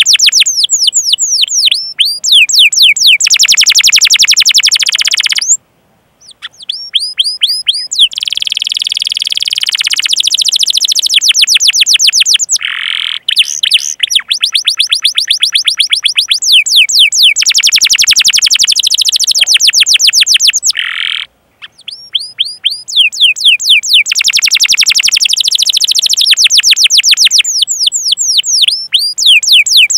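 Domestic canary singing long, fast rolling trills of repeated down-slurred chirps (cuit-cuit), with two short breaks about six and twenty-one seconds in.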